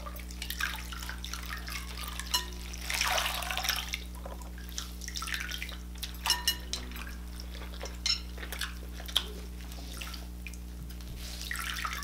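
Hands and a wet cloth splashing and sloshing in a glass bowl of soapy water, with drips as the cloth is lifted and wrung out. A few sharp clicks fall in the middle, and one longer splash comes about three seconds in.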